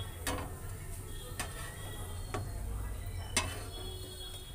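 Hot refined oil in a frying pan sizzling faintly, with four sharp ticks spread about a second apart.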